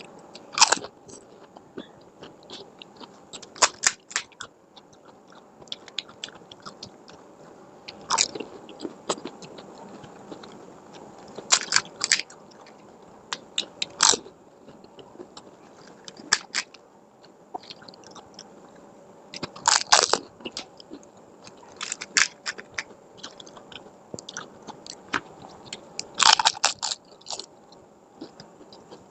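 Crisp fried fuchka (pani puri) shells cracking as they are bitten, then chewed, in short crunchy bursts every two to four seconds.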